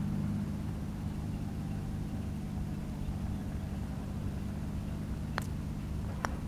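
Putter striking a golf ball with a sharp click about five seconds in, followed by a second click less than a second later, over a steady low background rumble.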